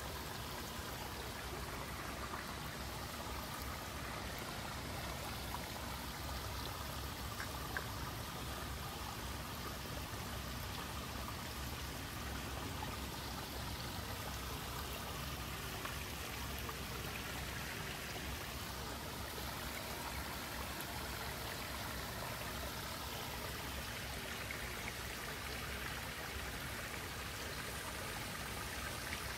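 Steady rush of running water, with a few faint ticks.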